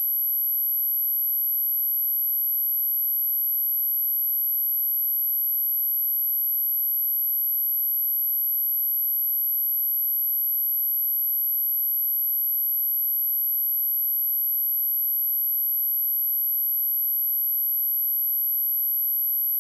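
A steady, unbroken high-pitched sine-wave test tone at 11764 Hz, holding one pitch and level throughout, used to test speakers and shake water and dust out of them.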